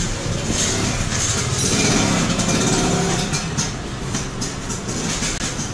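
A motor vehicle's engine running close by, with a steady low rumble over busy street noise.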